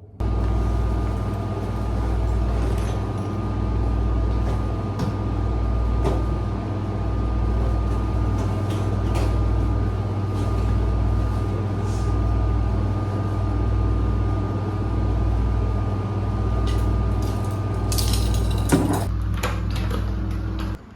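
Steady machine hum with a low throb about once a second and a thin steady whine above it; a few clicks and a short rattle near the end.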